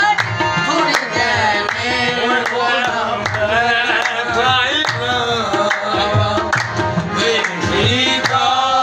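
Qawwali singing led by male voices over two harmoniums, with hand clapping keeping a steady beat.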